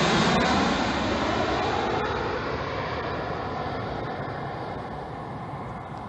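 Jet airliner's engines rushing as it passes low overhead on final approach and recedes toward the runway, the noise steadily fading and losing its hiss.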